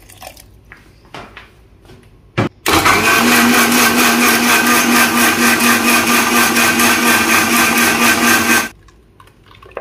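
Indian mixer grinder (mixie) grinding a wet mint-and-coconut chutney with a little water. After a click about two and a half seconds in, the motor runs at full speed with a steady hum for about six seconds, then cuts off suddenly.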